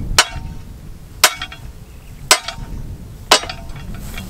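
A hammer striking a steel target stand four times, about a second apart. Each blow is a sharp metallic clank with a short ring after it.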